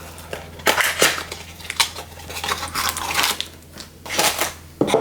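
Crinkling and crackling of a trading card pack's wrapper being handled and opened, in several irregular bursts.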